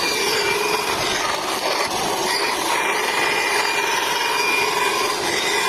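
Mini bandsaw running steadily as its blade cuts wood, an even machine noise with a faint steady whine on top.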